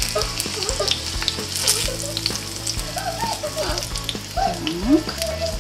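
Minced chicken-breast cutlets sizzling in hot oil in a frying pan, with scattered short clicks of a fork against the pan as they are lifted out.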